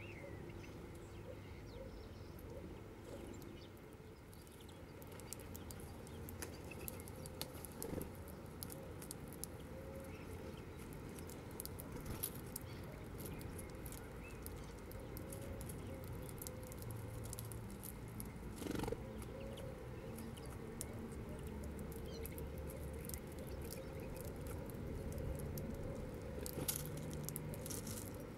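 Small seed-eating birds, mostly European greenfinches, pecking and husking seeds on the ground: scattered small clicks and taps, over a steady low background rumble.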